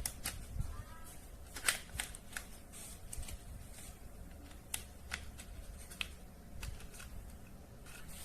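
Hands handling a toy and its plastic packaging: a dozen or so irregular sharp clicks and rustles, the loudest about two seconds in.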